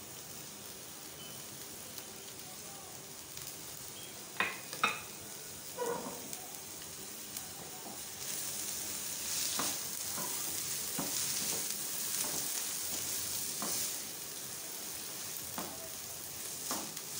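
Chopped onions, capsicum and green chillies sizzling in hot oil in a nonstick frying pan, being sautéed and stirred with a spatula, with a few knocks and scrapes against the pan. The sizzle grows louder about eight seconds in as the stirring gets going.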